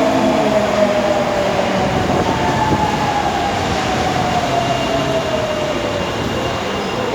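Subway train running, with its traction motor whine falling slowly in pitch over a steady rumble as the train slows.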